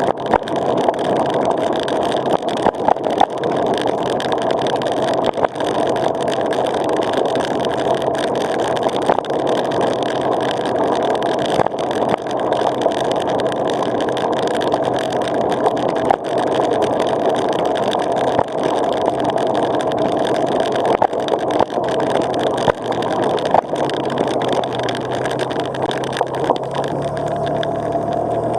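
A vehicle driving slowly on a gravel road, its engine running steadily under a constant rush of tyre noise, with many small sharp clicks of stones under the tyres.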